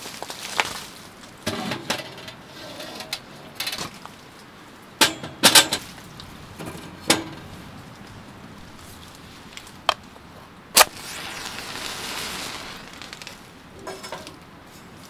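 Irregular knocks and clinks of hard objects being handled, loudest in a cluster about five seconds in, with single sharp clicks about seven and eleven seconds in, followed by a soft rustling swell.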